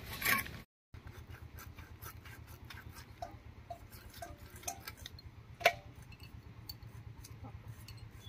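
Faint clicks and scrapes of a chitol (clown knifefish) being cut against an upright boti blade, with one sharper click a little past halfway.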